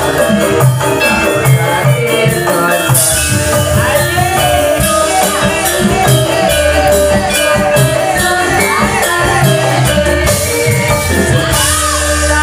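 Javanese gamelan ensemble playing, with steady drum strokes under ringing metallophone tones, accompanying amplified singing.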